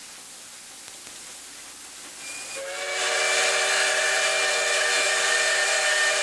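Mikado steam locomotive's whistle blowing a long, steady chord of several notes together with a hiss of steam. It starts about two and a half seconds in, is loud within half a second and is held. Before it there is only a quiet, steady noise.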